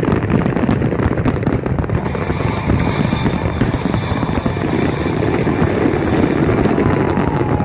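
Fireworks display going off: a dense, continuous run of crackling pops and bursts.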